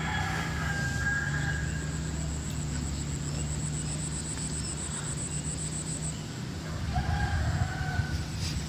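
A rooster crowing twice, a long crow at the start and a shorter one about seven seconds in. Under it a high pulsing insect trill stops about six seconds in, over a steady low hum.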